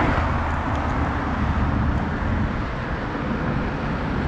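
Steady city traffic noise, heaviest in the low end.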